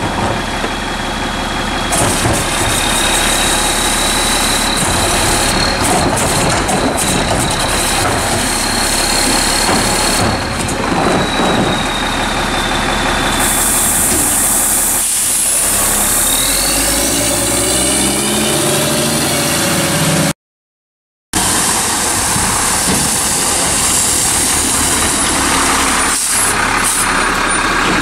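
A CCC Labrie MSL sideload garbage truck's diesel engine idles with a steady high whine over it. About halfway through there is a burst of air hiss, and the engine rises in pitch as the truck pulls away. After a second of silence it is idling again.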